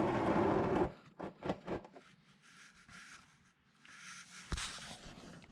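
Rubbing and scraping of hands working a loosened oil drain plug on a tractor, with a loud rustle at the start and scattered clicks and taps. There is one sharp click near the end.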